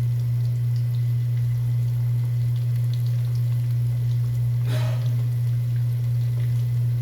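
A steady low hum runs through, the loudest sound, with faint crackling of food frying in hot oil underneath and one short noise about five seconds in.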